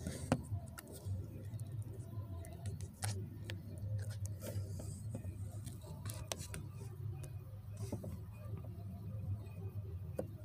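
A low, steady vehicle rumble, with scattered faint clicks and taps over it.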